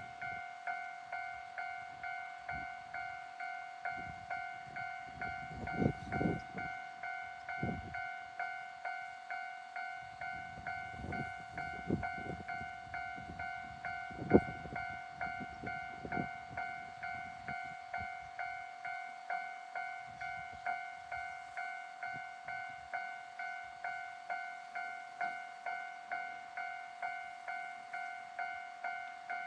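Japanese railway level-crossing alarm ringing in an even, repeating pattern, about one and a half rings a second. Under it, a train passes over the crossing with an irregular low rumble and clatter for roughly the first half, including one sharp clack about fourteen seconds in.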